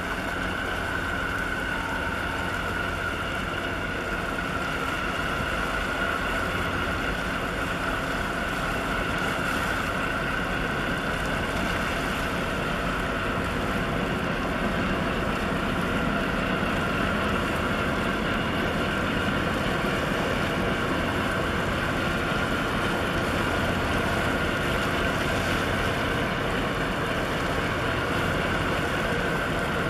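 Tugboat diesel engine running steadily under load alongside a large container ship, with a continuous high whine over the engine's drone.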